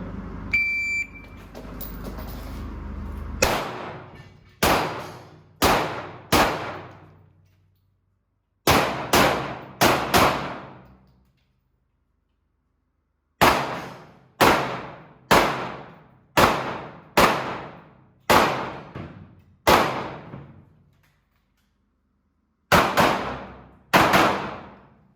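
A shot-timer start beep just under a second in, then a 9 mm Glock 17 Gen5 pistol firing about eighteen shots in quick bunches of two to eight with short pauses between. Each shot is sharp, with a ringing echo after it.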